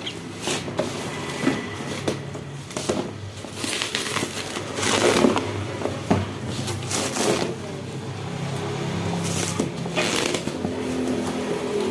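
Cardboard box and plastic packaging being handled and opened: irregular crackling, rustling and scraping, loudest about five seconds in.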